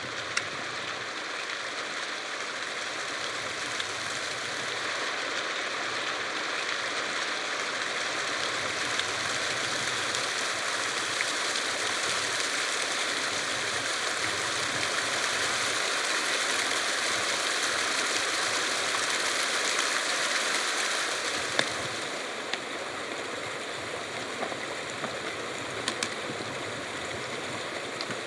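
Stream water rushing steadily, growing louder over about twenty seconds and then easing off, with a few faint clicks over it.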